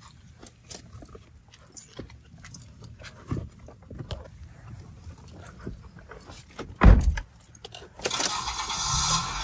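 Keys jangling and small clicks and rattles as a dog climbs into a car and someone settles into the driver's seat. A car door thuds shut about seven seconds in. About a second later a steady rush of air starts: the car is switched on and its ventilation fan blows.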